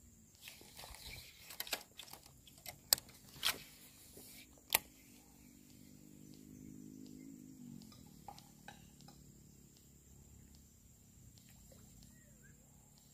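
Several sharp clicks and taps from handling the rod and reel, then a faint even whirr from a Shimano Bantam baitcasting reel being wound in, lasting about three seconds and dying away about eight seconds in.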